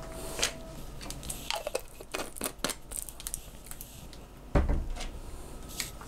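Tabletop handling of small plastic items, such as a pen-type TDS meter and its cap: a quick run of light clicks and taps, then one heavier thump on the table about four and a half seconds in.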